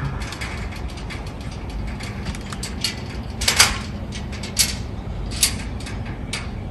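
Irregular small metallic clicks and ticks from hand work on an aluminium greenhouse frame, with a brief rattling cluster about three and a half seconds in and two single sharper clicks after it, over a steady low hum.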